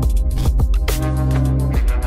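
Background music with deep held bass notes and a steady beat.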